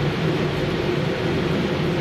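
Steady machine hum and rumble of a running cereal-flake production line, with a vibrating sieve shaking the flakes across perforated stainless-steel trays.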